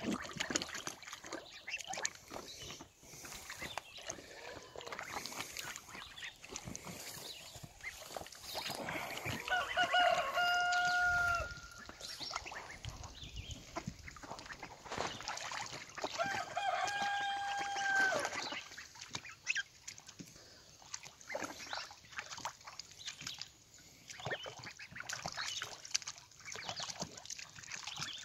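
Young ducks and geese splashing and dabbling in a shallow tarp-lined pool, with small splashes and water sloshing throughout. Twice a fowl gives a long, steady call, about ten seconds in and again some six seconds later; these calls are the loudest sounds.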